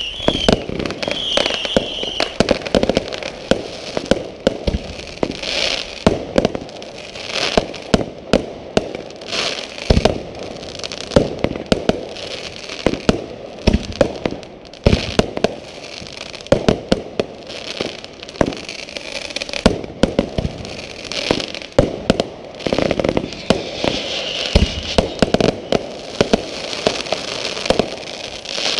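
Many fireworks going off in quick succession: a dense run of bangs and crackling with no let-up. Brief wavering high whistles come near the start and again near the end.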